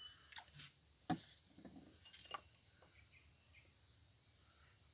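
Near silence: faint background chirping with a few soft taps and clicks in the first two and a half seconds.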